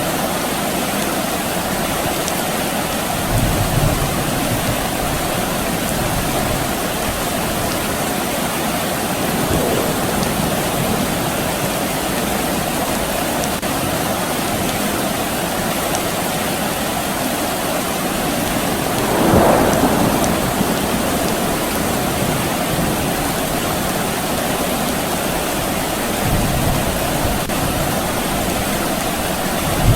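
Steady soft rain falling, an even hiss, with a few brief low swells; the largest comes about two-thirds of the way through.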